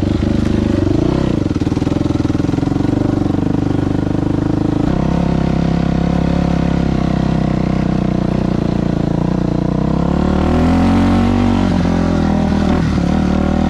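2000 Yamaha YZ426F four-stroke single-cylinder dirt bike engine running under way. There is a shift in engine note about five seconds in, and the revs rise and fall near the end.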